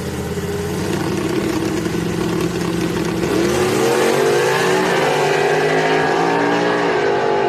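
Two drag-racing pickup trucks running steadily at the start line, then launching about three and a half seconds in and accelerating hard away. The engine pitch climbs and drops back at each gear change.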